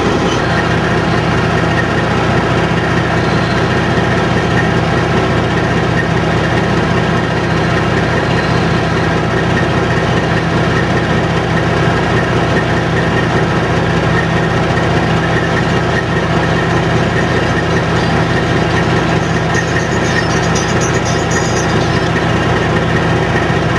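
John Deere combine harvesting soybeans: its diesel engine and threshing machinery running steadily under load.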